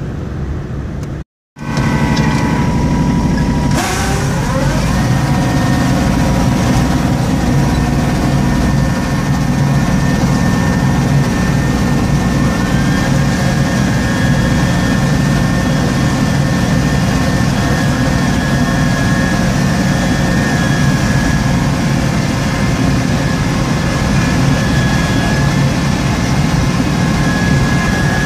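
Inside the cab of a small Kubota, the engine runs steadily under load while its front-mounted snowblower throws snow. The sound is dense and even, with a thin high whine in it that rises about halfway through. It opens with a second of truck road noise that cuts out suddenly.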